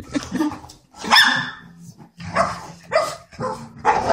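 A dog barking repeatedly, about five barks, the loudest about a second in.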